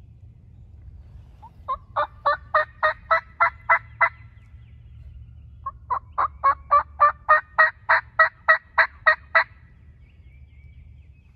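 A hunter's turkey call sounding hen yelps: two runs of evenly spaced notes, about nine and then about twelve, roughly four a second, the second run growing louder.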